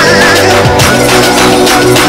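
Loud electronic music with a fast, steady beat.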